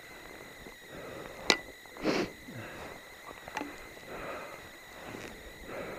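Crampon-shod boots stepping up through deep snow: soft crunching, with a sharp click about a second and a half in and a louder crunch half a second later, then a few lighter ticks.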